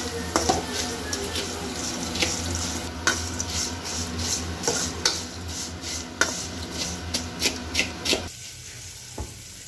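Dry Maggi noodles being stirred and turned in a little hot oil in an aluminium kadai with a metal spatula: repeated scraping and clicking of the spatula on the pan over a light sizzle, with a steady low hum underneath. The stirring stops about eight seconds in.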